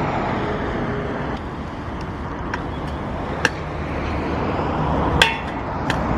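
Stunt scooter wheels rolling over concrete with a steady rumble, broken by several sharp clacks of the scooter striking the ground, the loudest about five seconds in with a brief metallic ring.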